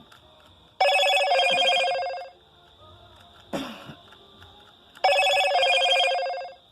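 Telephone ringing twice, each ring a loud trilling burst of about a second and a half, with a short pause between; a brief sliding sound falls between the two rings.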